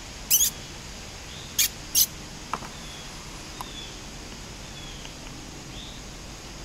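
Flying squirrels squeaking: three short, sharp, high-pitched squeaks in the first two seconds, then several faint, short falling chirps.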